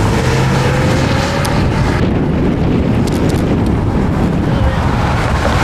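Strong storm wind buffeting the microphone: a loud, steady rumbling rush with no break.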